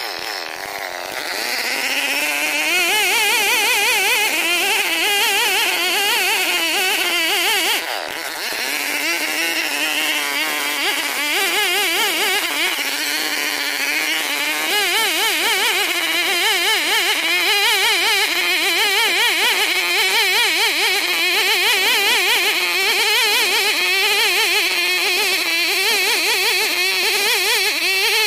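Chinese-made Stihl 070 copy, a big two-stroke chainsaw, running at full throttle as it rips lengthwise through a Borneo ironwood (ulin) beam. Its pitch wavers under the load of the cut, with a brief dip about eight seconds in.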